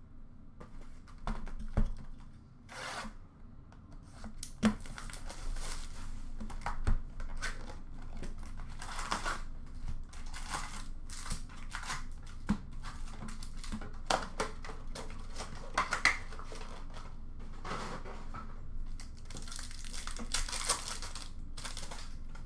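Foil wrappers of hockey card packs being torn open and crinkled while the cards are handled, with irregular crackles and rips and a few soft knocks in the first several seconds.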